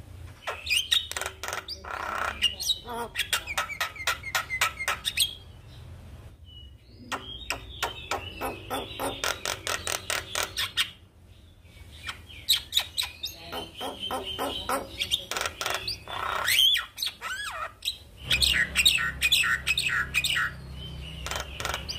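Javan myna singing: four bursts of fast, harsh, rapidly repeated chattering notes, each a few seconds long, separated by short pauses.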